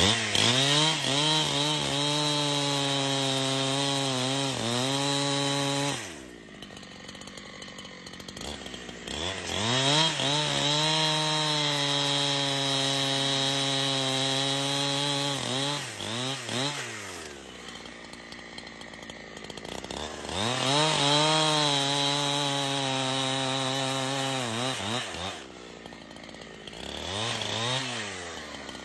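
Chainsaw engine held at full throttle through three long cuts, its pitch dipping now and then as the chain takes load in the wood. Between cuts it drops back to idle, about six seconds in, around seventeen seconds and around twenty-five seconds, and it revs up briefly once more near the end.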